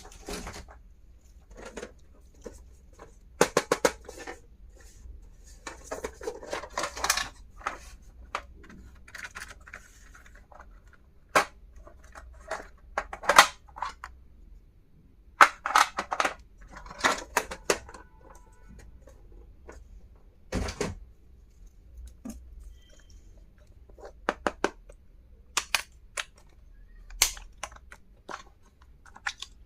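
Small plastic stationery items and their packaging being handled: irregular sharp clicks and taps mixed with short rustles and crinkles.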